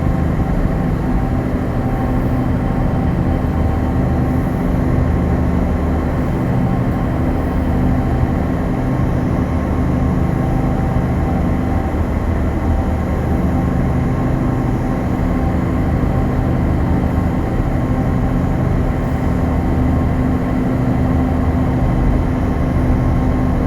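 Heavy engine drone, steady and unbroken, with a low hum and a few steady tones over it, as heard aboard a car ferry under way.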